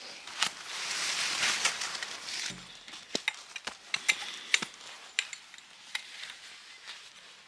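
Rustling for the first couple of seconds, then a scatter of sharp clicks and light knocks: camping gear being handled and packed up.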